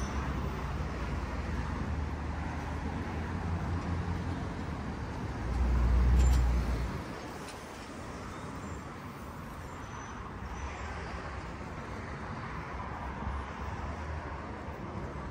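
Street traffic noise beside a city road, steady throughout. A loud low rumble swells and fades about six seconds in.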